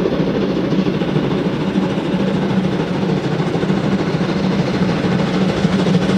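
German class 41 steam locomotives working an empty wagon train as they approach: a steady rumbling noise from the exhaust and running gear, with no separate beats standing out.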